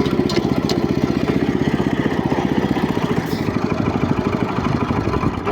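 Walk-behind tractor's engine running steadily with a fast, even beat, dropping away right at the end.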